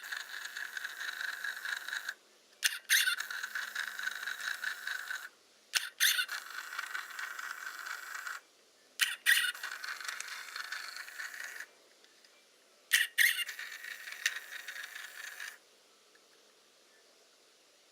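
Hasselblad Winder CW repeatedly firing and winding the camera, four full cycles about three to four seconds apart. Each opens with sharp clicks of the shutter release, then about two and a half seconds of high squeaking whir from the winder as it advances. The squeak is the fault the winder needs lubricating to cure.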